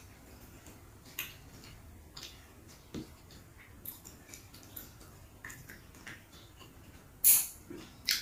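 Eating by hand: soft, wet clicks roughly once a second as the mouth chews and fingers press rice against a banana leaf, with one louder, brief rustling smack about seven seconds in.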